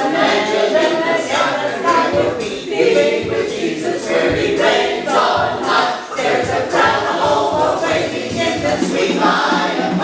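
A group of voices singing together, with no instrument clearly heard under them.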